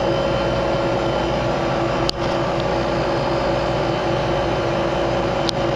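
Steady machine hum with a constant whooshing noise beneath it, and two sharp clicks, one about two seconds in and one near the end.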